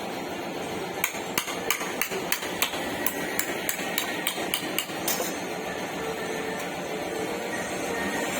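Hammer striking car body metal in panel repair: about fifteen quick, sharp blows, roughly three a second, which stop about five seconds in.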